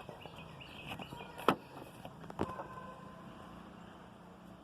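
A few light clicks and knocks from handling a hand pump and its hose as a cigarette is fastened into the hose end, the loudest about a second and a half in, over a faint steady hum.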